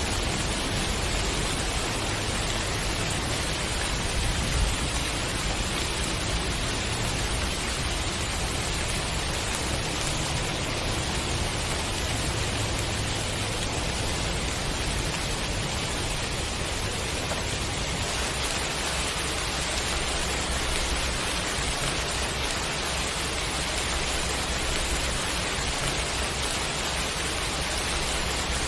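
Steady rain falling, an even unbroken hiss with no separate drops, thunder or other sounds standing out.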